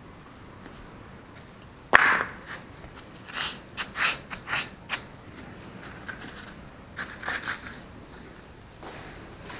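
Rubber slide sandals dropped onto a stone-tiled floor with one sharp slap about two seconds in. A run of quick scuffs and slaps on the tiles follows as they are stepped into, then a few short sandal steps near the end.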